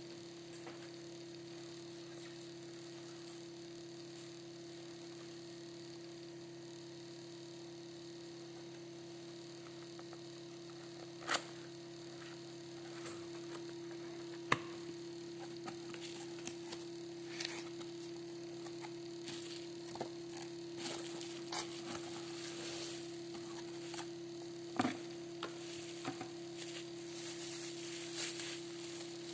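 A steady low electrical hum throughout. From about a third of the way in come scattered clicks, taps and crinkling rustle of packaging and the speaker being handled, growing busier toward the end.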